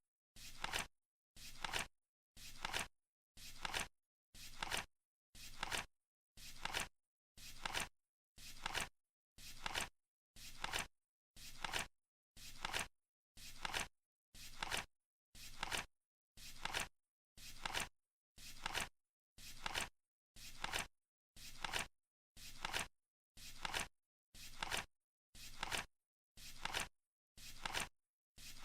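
Flip clock's digit flaps flipping over once a second as the countdown runs. Each is a short, noisy flap with silence between.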